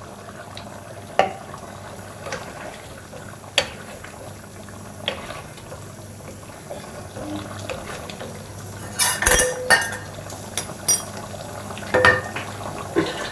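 Wooden spatula stirring a simmering curry in a wok and knocking against the pan: a few single knocks, then a quicker run of clatters about nine seconds in and again near the end, over a low steady hum.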